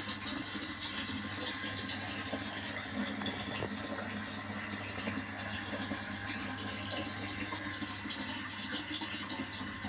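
Steady running-water noise in a fish tank, with a constant low hum underneath and faint crackles.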